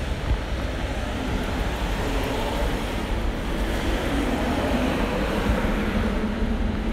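Road traffic: a steady low rumble with a vehicle's engine hum that grows louder in the second half.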